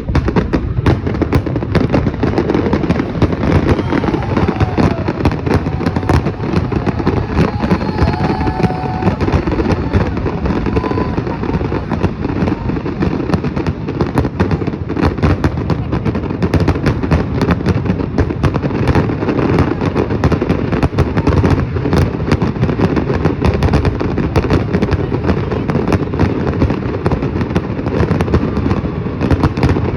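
Dense, unbroken barrage of fireworks going off: many sharp bangs and crackles a second, overlapping with no pause.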